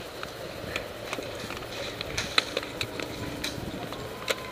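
Scattered faint clicks and knocks at irregular intervals over low background noise.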